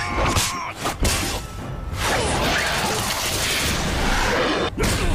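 Fight-scene soundtrack: background music with swishing whooshes and a few sharp impact hits from a sword and martial-arts fight.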